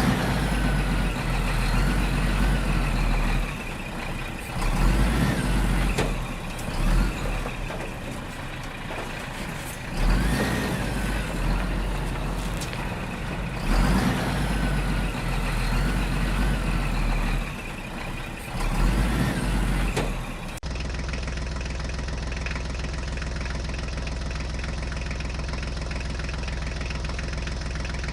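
Heavy vehicle engine sounds that rise and fall, with sliding tones over them; about 20 seconds in they cut off abruptly, and a steady engine-like hum takes over.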